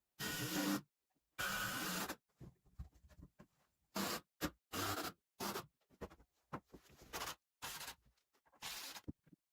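A series of short, irregular scraping noises of varying length, the two longest coming first, from hands-on construction work.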